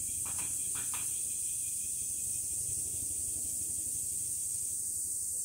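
A chorus of cicadas buzzing steadily on a high, shrill note, with glass wind chimes (fūrin) tinkling briefly twice in the first second.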